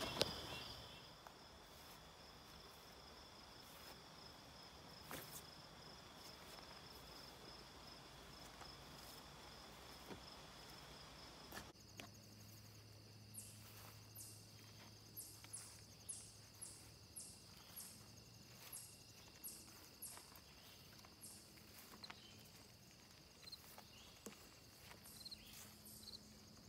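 Near silence outdoors with faint, steady insect trilling. From about halfway, a run of short high chirps comes a little more than once a second.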